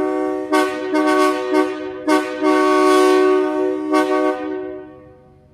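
Locomotive air horn sounding several short toots, then a long blast of a bit over a second and one more toot, after which the sound dies away about five seconds in.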